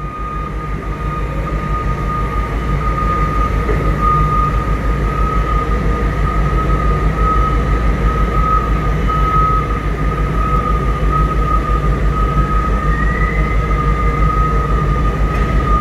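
Steady mechanical drone of a container gantry crane lowering a container, with a constant high-pitched whine throughout and a faint rising whine near the end.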